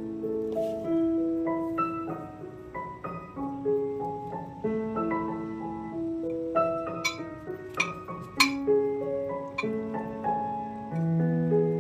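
Background piano music with a slow run of single notes, with a few sharp clinks of a spoon against the ceramic dish about seven to eight and a half seconds in.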